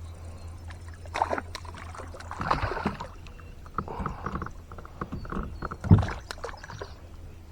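Water splashing and sloshing in a few irregular strokes beside a small boat, over a steady low hum. About six seconds in comes a louder knock with a low thump.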